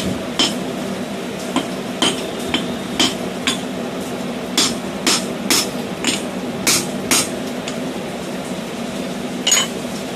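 Hammer blows on a steel punch driven into the eye of a red-hot steel hammer head on the anvil, expanding the eye: about a dozen sharp metal-on-metal strikes in uneven groups, then a pause of about two seconds before one last strike near the end. A steady hum runs underneath.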